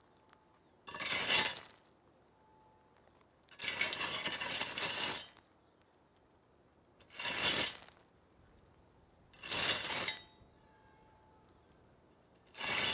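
Metal spade or shovel digging, five separate strokes a couple of seconds apart. Each is a gritty scrape of the blade into soil, one longer and dragged. Some end in a sharp metallic clink with a brief ring of the blade.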